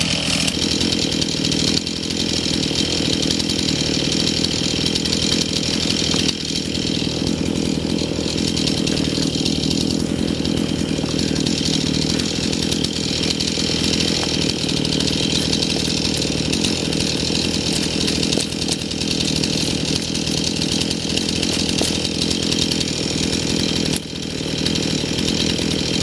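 Chainsaw running steadily at an even pitch, with short dips about two, six and twenty-four seconds in.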